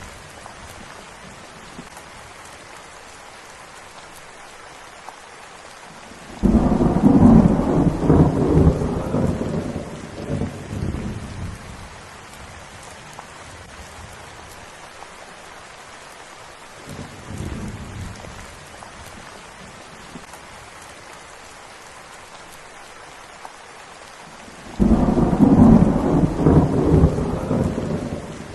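Steady rainfall with rolling thunder: a loud peal breaks in suddenly about a quarter of the way through and rumbles away over several seconds, a fainter rumble follows midway, and another loud peal starts near the end.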